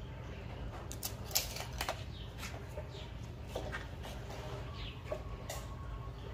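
Small birds chirping in short, scattered calls, with a few sharp clicks and knocks (the loudest about a second and a half in) over a low steady hum.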